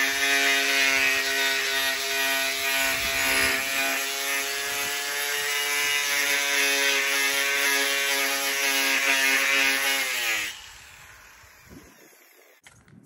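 Electric angle grinder with a disc running against a rusty metal post, a steady motor whine under a loud scraping as it scours the old coating off. About ten seconds in it is switched off and winds down, its whine falling in pitch as it spins to a stop.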